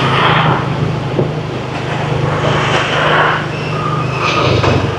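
A motor vehicle's engine running steadily on the move through city traffic, with the rush of passing vehicles swelling three times, near the start, around the middle and near the end.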